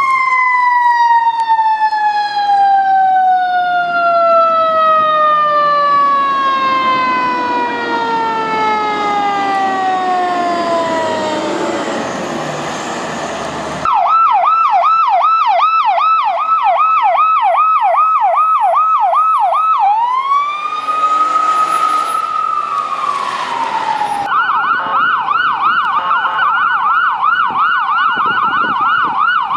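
Emergency vehicle sirens in three spliced clips. First a mechanical siren winds down in one long, slowly falling tone. After a cut about 14 seconds in, an electronic yelp cycles rapidly up and down, then rises into a wail that holds and falls away. After another cut near 24 seconds, a fast yelp sounds again.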